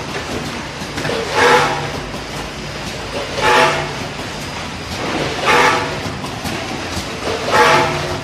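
Automatic candy weighing and cartoning machine running, its cycle repeating about every two seconds: a pitched, hissing surge four times over a steady mechanical background.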